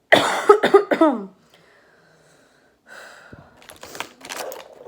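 A child's hoarse coughing fit from a head cold: several loud coughs in quick succession with short falling voiced tails in the first second and a half. About three seconds in come softer rustling and clicking handling sounds.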